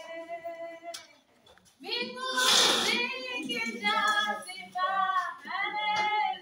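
A girl singing solo with no instruments, in long held notes; she pauses briefly about a second in, and a loud rush of noise comes about two and a half seconds in as she resumes.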